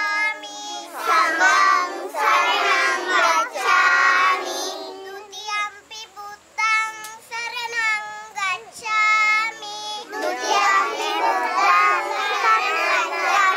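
Young children chanting a devotional verse in a sing-song voice, the group in unison alternating with a single child's voice leading alone.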